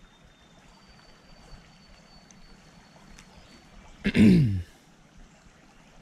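A man clears his throat once about four seconds in, a short grunt falling in pitch, over the faint steady trickle of a creek.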